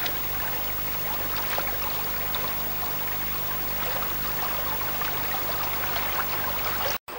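Steady flowing water of a village stream, with a faint low hum underneath; the sound cuts out for an instant near the end.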